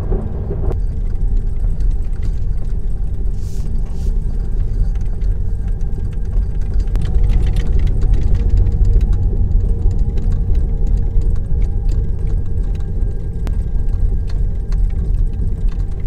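Electric car rolling slowly over a rough gravel and paved track, heard from inside the cabin: a steady low rumble of tyres and road noise.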